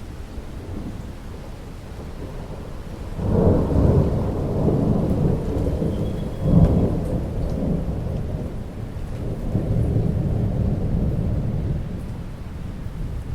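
Thunder rumbling over steady rainfall. A rolling peal builds suddenly a few seconds in, swells again near the middle, then slowly dies away.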